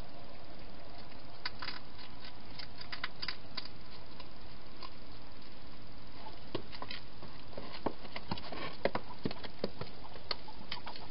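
A hedgehog feeding at a bowl inside a plastic feeding box: irregular small clicks and taps, sparse at first, then louder and more frequent in the second half as it moves about in the box, over a steady background hiss.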